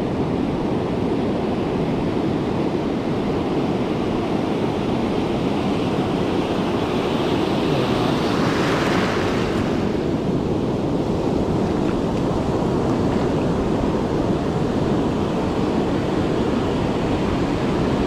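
Ocean surf washing steadily on a beach, with wind buffeting the microphone; a louder, hissing rush of surf rises and falls about halfway through.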